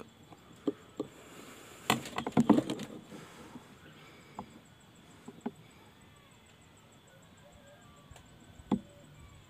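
Sharp knocks and clicks: two single ones, then a quick rattling cluster about two seconds in, and a few scattered single clicks after.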